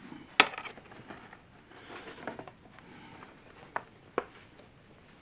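Parts of a table lamp being handled during assembly: a sharp click about half a second in, light rustling, then two more clicks near the end.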